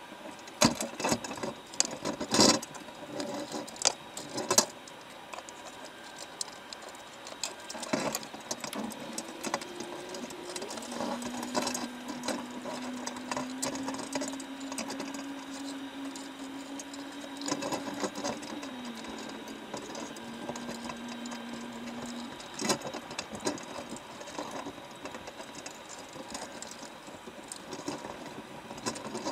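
Mechanical rattling with scattered sharp clicks and knocks, loudest in the first few seconds. A steady low motor hum comes in about eleven seconds in, steps down slightly in pitch, and stops about ten seconds later.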